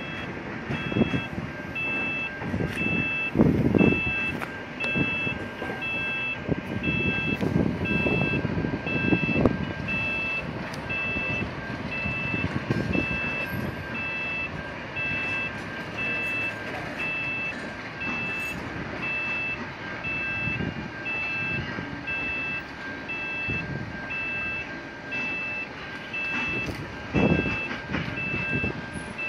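Railway level-crossing warning bell ringing in a steady, evenly spaced beat while a train of passenger carriages rolls slowly over the crossing. The wheels rumble and clatter on the rails, with several louder clunks.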